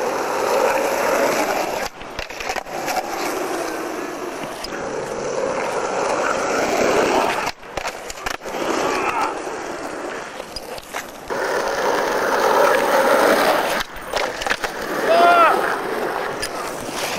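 Skateboard wheels rolling on rough asphalt, broken now and then by sudden knocks and breaks as the board is popped and landed in flatground tricks. A short pitched call rings out near the end.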